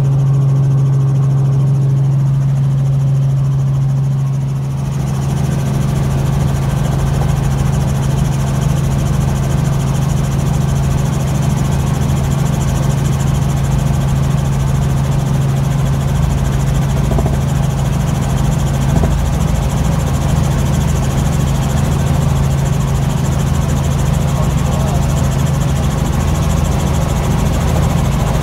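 Light helicopter in flight heard from inside the cabin: a steady, loud engine and rotor drone with a strong low hum, turning rougher and noisier about five seconds in.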